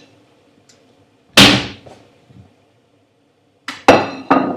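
Sharp knocks and clinks of kitchenware being handled: one loud knock about a second and a half in, then a quick group of knocks near the end.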